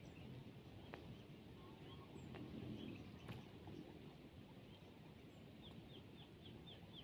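Faint outdoor quiet with small birds chirping now and then; near the end a quick run of about six short, falling chirps.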